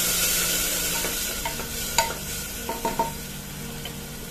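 A splash of water sizzling on hot oil and spices in a pressure cooker, loudest at first and then dying down. A spoon stirs through it, with a few sharp clinks against the pot a little past the middle.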